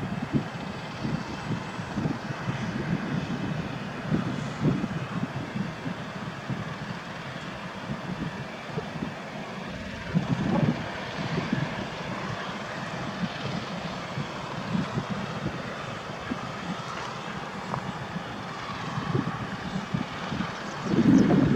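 Steady aircraft engine noise heard at a distance, with irregular gusts of wind buffeting the microphone.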